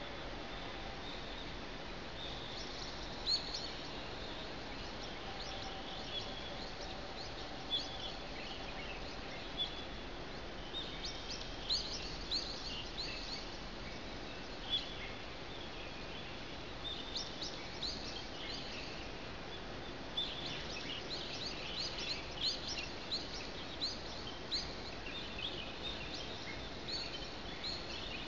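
Small birds chirping at daybreak: many short, quick chirps in scattered clusters, busiest in the middle and toward the end, over a steady background hiss.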